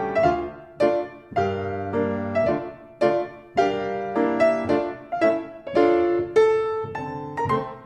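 Piano accompaniment for a ballet barre exercise: notes and chords struck on a steady beat, each ringing and fading before the next.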